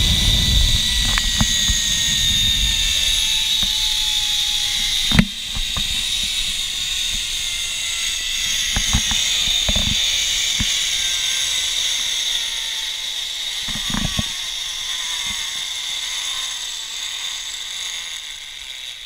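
Zipline trolley pulleys running along the steel cable: a steady whirring hiss with faint whines that slowly fall in pitch. There is a sharp knock about five seconds in and another around fourteen seconds, and the sound fades near the end.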